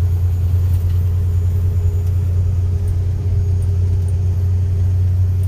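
Class A semi truck's diesel engine running steadily under way in gear, heard from inside the cab as a loud, even low drone with a faint steady higher tone above it.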